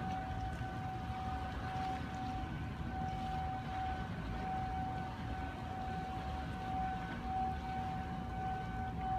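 Low rumble of a boat underway on the water, with a steady high-pitched tone ringing over it that flickers slightly about twice a second.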